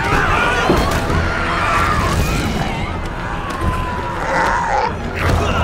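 People screaming and shouting in panic over a steady low rumble, with scattered knocks and thumps of a scuffle.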